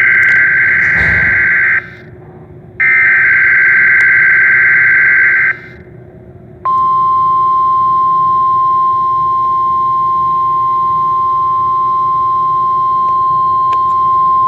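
Emergency Alert System SAME header data bursts: two harsh warbling digital screeches of about three seconds each, a second apart. About six and a half seconds in, a steady single-pitch attention tone starts and holds.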